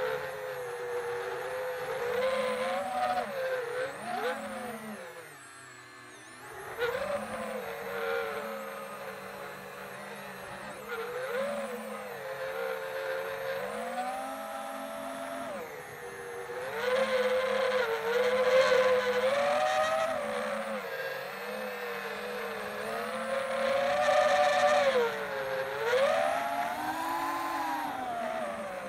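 Quadcopter motors and propellers whining, heard from the quad's own onboard camera, the pitch rising and falling with the throttle. The sound drops away briefly about five seconds in, then surges louder twice in the second half.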